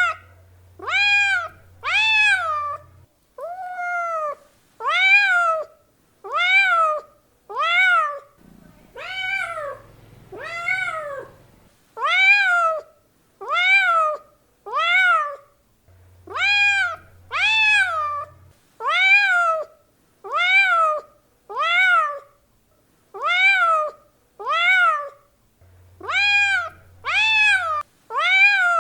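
Domestic cat meowing over and over, more than twenty meows each about a second apart. Each meow rises and then falls in pitch.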